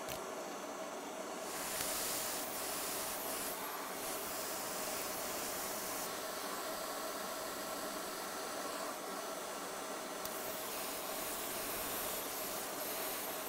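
Steady hiss of moving air with a faint hum underneath, getting brighter and slightly louder about two seconds in.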